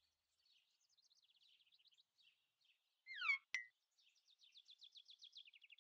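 Faint birdsong: scattered high chirps, a louder pair of falling chirps with a short click about three and a half seconds in, then a rapid trill near the end.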